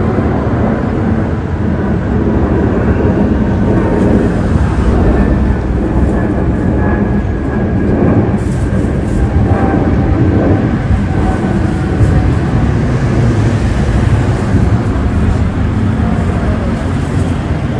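Twin-engine jet airliner passing overhead: a steady rumbling roar with a faint whine running through it.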